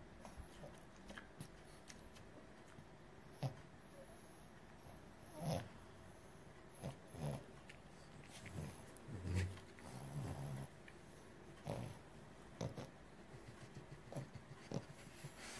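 French Bulldog breathing and shifting in a fabric pet bed while nuzzling a kitten: faint, short noises scattered irregularly, a few lower and fuller ones around the middle.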